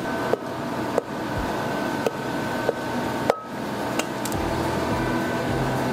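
Spatula knocking and scraping against a stainless steel bowl as strawberry gelée is scraped out of it: about six light knocks with a short ring, spaced roughly half a second to a second apart, over a steady hum.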